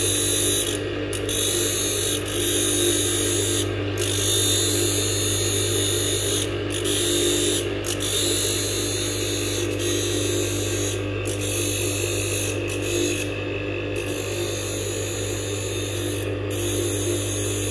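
Electric blade-grinding machine running steadily while a hair-clipper blade is sharpened on its grinding disc: an even motor hum with a high hiss that breaks off briefly several times.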